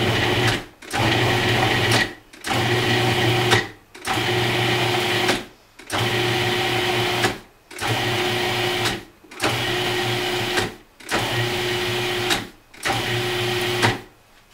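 Cuisinart 14-cup food processor motor pulsing, nine runs of about a second and a half with short pauses between, its blade cutting cold butter cubes into flour, sugar and salt until the mixture turns crumbly.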